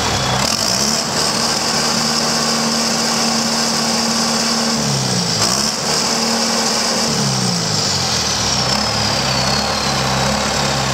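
John Deere 4276 turbocharged four-cylinder diesel engine revved up from idle about half a second in and held at speed with a high turbo whine. Its speed dips and picks back up around five seconds, then falls back to idle near eight seconds while the turbo whine slowly falls in pitch.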